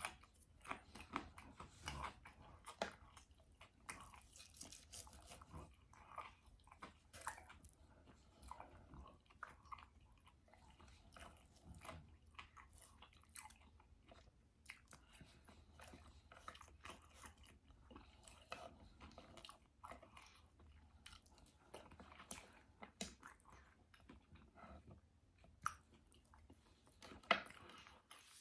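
A person chewing and biting food close to the microphone: soft, irregular smacks and crunches, with a sharper click near the end.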